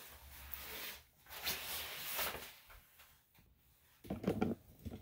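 Rustling and handling noises as a small dog is picked up off a grooming table, then a short clatter of knocks about four seconds in.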